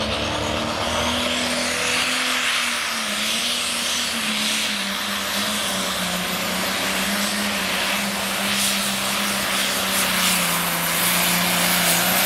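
John Deere light pro pulling tractor's diesel engine running flat out under the load of a pulling sled. A high whine climbs over the first two seconds and then holds above the steady engine note.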